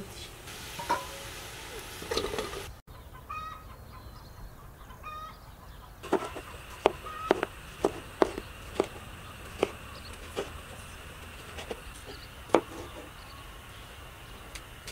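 A kitchen knife slicing tomatoes on a plastic cutting board: about a dozen sharp, irregular taps as the blade goes through and hits the board, starting about six seconds in. Before that, a hen clucks a few times.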